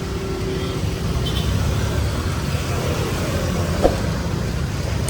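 Steady city street traffic rumbling by, under an even hiss of heavy rain on the street.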